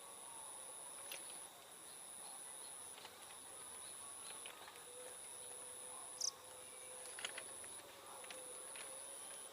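Insects trilling, a high-pitched faint trill repeating in spells of about a second and a half with short breaks, with a sharp click about six seconds in.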